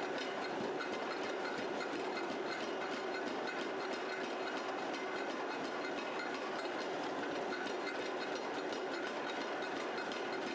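Steady mechanical running noise with faint fast ticking, without separate blows.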